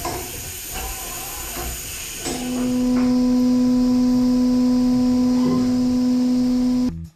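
A 5-axis CNC machining centre running with a steady hiss. About two seconds in, a loud, steady pitched tone sets in, which stops abruptly near the end.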